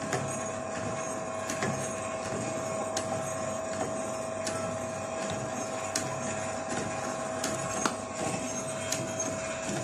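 Electric mortar-and-pestle grinding machine running with a steady hum, its pestle turning in a steel bowl of paste, with a sharp tick about every second and a half.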